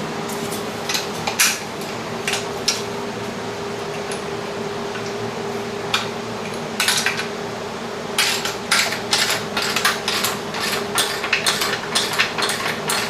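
Metal clinks and clatter of tools and home gym parts being handled: a few scattered clinks, then a quicker, irregular run of them from about eight seconds in, over a steady low hum.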